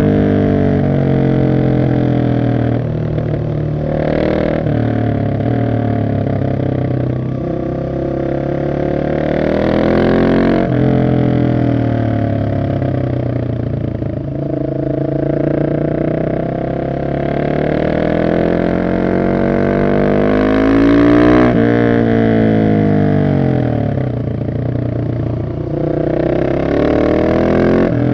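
Husqvarna 701 SM's single-cylinder engine through a decatted Arrow exhaust, revving up hard and falling back again and again as the bike accelerates and slows between bends. The pitch drops off abruptly about ten seconds in and again about twenty-one seconds in, then climbs again.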